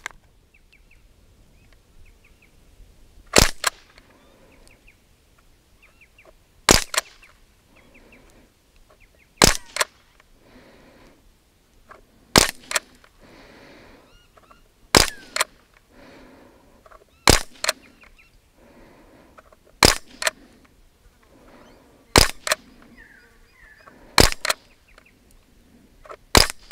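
Umarex Ruger 10/22 .177 air rifle, powered by 12-gram CO2 canisters, firing pellets in semi-auto: ten sharp shots, one every two to three seconds. Each shot is a short crack with virtually no noise beyond it.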